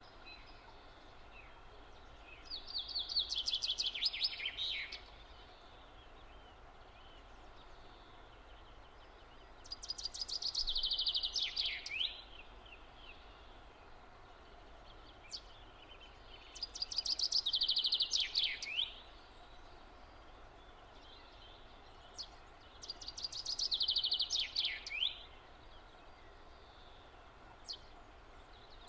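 A songbird sings the same short phrase four times, about every seven seconds: a quick run of notes that falls in pitch and ends in a brief flourish. Faint steady background noise runs beneath.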